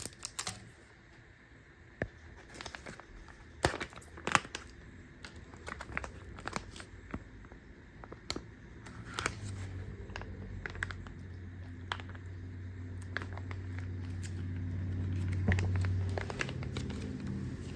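Plastic and foil MRE pouches crinkling and tearing as they are handled and opened, with scattered sharp crackles. A steady low hum comes in about halfway through and grows louder before dropping near the end.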